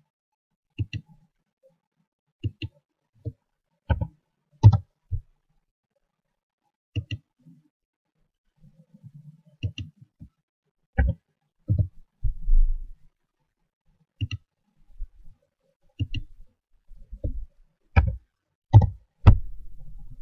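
Irregular clicks of a computer mouse and keyboard keys, about twenty in all, some in quick pairs, with a brief low thud about twelve seconds in.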